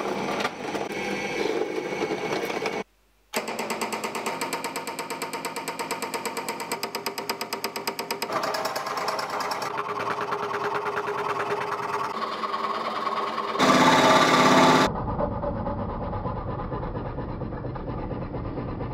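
Workshop power tools working wood in a run of short clips joined by abrupt cuts: a drill press boring holes and a Ryobi 405 mm scroll saw cutting out letters, its blade running up and down in a fast, even rhythm. There is a brief dropout about three seconds in and a louder burst near fourteen seconds.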